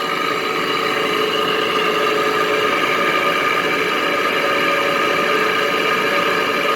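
Frigidaire window air conditioner running: a steady mechanical hum from its fan and compressor, with several constant tones over a whir.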